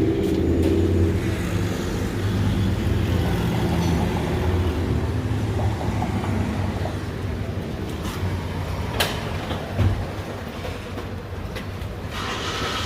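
A vehicle engine running with a steady low drone that slowly fades, with two short sharp clicks about nine and ten seconds in.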